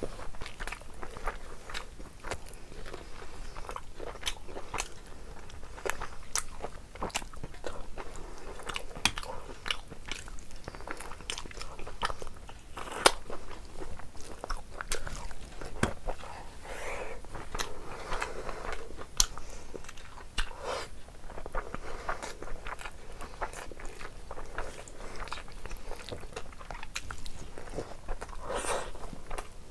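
A person eating close to a clip-on lapel microphone: chewing and biting food, with many sharp wet mouth clicks and smacks throughout.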